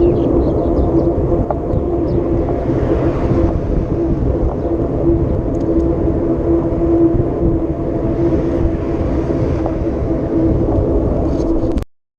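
Vehicle engine running steadily off-road, a constant hum over low rumble. The sound cuts out abruptly for a moment near the end.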